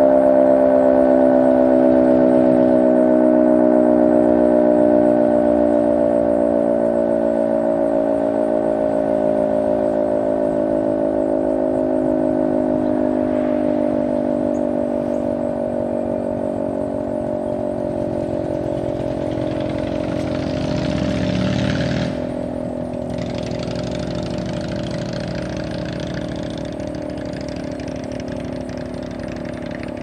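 GCS Model 5 eight-port siren winding down after its test blast: a chord of several tones slowly falling in pitch and fading. About two-thirds of the way through, a rush of noise swells and cuts off suddenly.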